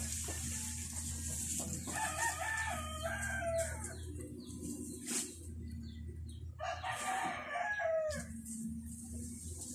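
A rooster crowing twice, each crow about a second and a half long.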